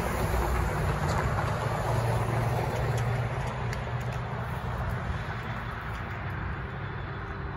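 Road traffic: cars driving across the railroad crossing and past, a steady noise that eases off a little after about three seconds as they move away.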